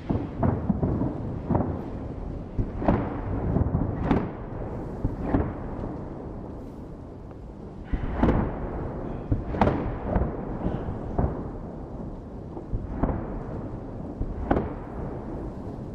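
Festive fireworks salute: aerial shells bursting in deep booms, about a dozen at uneven intervals, with a low rolling rumble carrying on between them.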